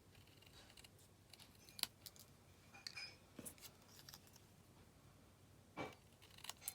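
Scissors snipping card stock: faint, scattered clicks and snips, a few sharper ones now and then.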